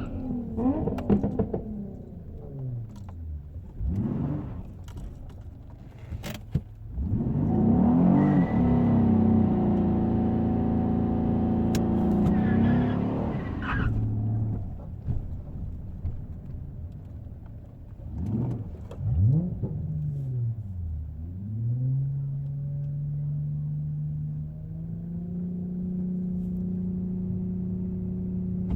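Car engines revving and accelerating hard. The pitch climbs and drops in several sweeps, and one engine is held loud at high revs from about 7 to 14 seconds in.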